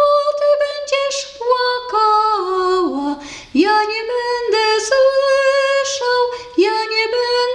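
A woman singing a Polish folk soldiers' song solo, unaccompanied, in long held notes that step up and down in pitch.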